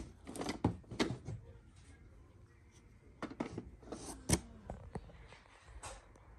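Irregular light clicks and knocks, about a dozen, in two clusters, over a faint low hum.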